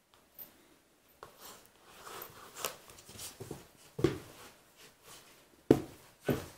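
Black Labrador puppy and golden retriever playfighting on a carpeted floor: scuffling and rustling with scattered soft thumps of paws and bodies, the loudest about four seconds in and twice near the end as the puppy bounds about.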